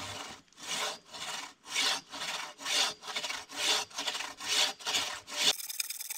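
Bahco Ergo 30-inch bow saw cutting through a solid hardwood log in fast, even push-and-pull strokes, about two a second. About five and a half seconds in the sawing cuts off abruptly and a steady hiss takes over.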